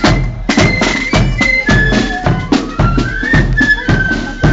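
Marching flute band playing a tune: flutes carry the melody over a steady marching beat of rope-tensioned side drums, a bass drum and clashing cymbals.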